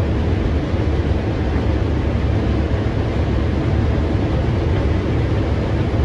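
Combine harvester cutting corn, heard from inside the cab: a steady drone of the engine and threshing machinery, heaviest in the low end.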